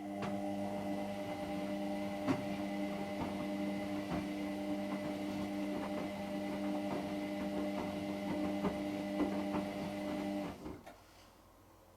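Hotpoint Extra WMXTF742K washing machine's drum motor turning the drum during a wash: a steady, even-pitched hum with a faint whine and scattered light knocks. It stops suddenly after about ten and a half seconds, as the drum pauses between turns.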